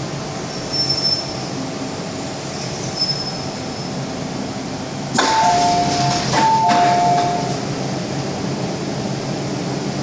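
Hong Kong MTR M-Train car with a steady rumble and hum as it stops, with a couple of faint, brief high squeals. About five seconds in the passenger doors open with a sudden clunk and a two-note door chime sounds twice, high then low.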